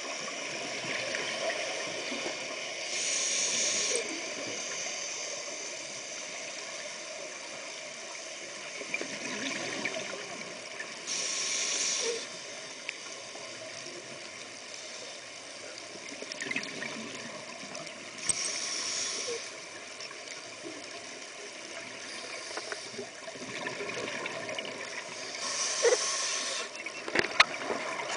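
Scuba breathing through a regulator, heard underwater through a camera housing: four hissing breaths about seven seconds apart, with bubbling and gurgling between them, and a few sharp clicks near the end.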